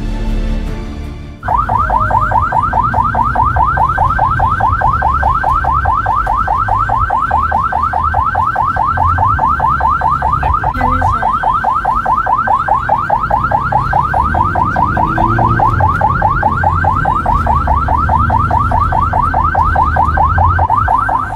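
Electronic siren sounding in a fast, evenly repeating rising sweep, several sweeps a second. It starts abruptly about a second and a half in and holds at a steady level, over a low rumble.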